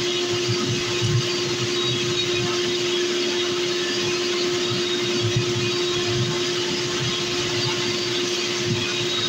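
Electric centrifugal blower forcing air into a forge furnace, running steadily: a constant hum over an even rush of air.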